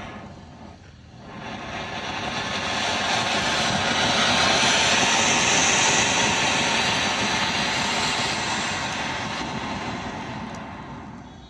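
Elephant brand Spring Flower Pot firework fountain spraying sparks and red stars with a steady rushing hiss. It dips briefly about a second in, swells to its loudest in the middle, then fades out near the end as the fountain burns down.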